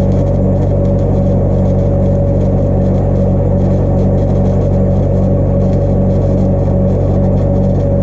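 Stick (arc) welding on steel: a steady low hum from the welding machine under the arc's crackle as a bead is laid.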